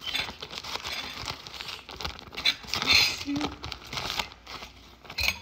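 Clear plastic bag crinkling and crackling as it is pulled open and peeled off, in irregular bursts of rustle, loudest about three seconds in.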